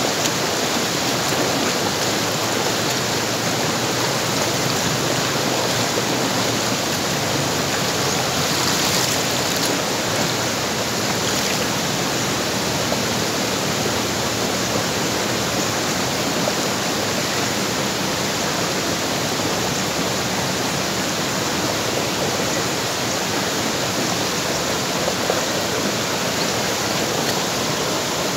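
Shallow stream rushing over rocks: a steady, even rush of flowing water.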